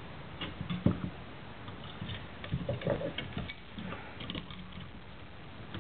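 Scattered small clicks, taps and rattles of light-fixture parts being handled as a threaded fitting is tightened by hand, snugged just firm.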